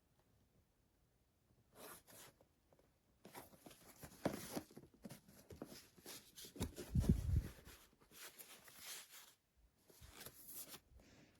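Handling noises: irregular rustling and scraping, with a dull thump about seven seconds in.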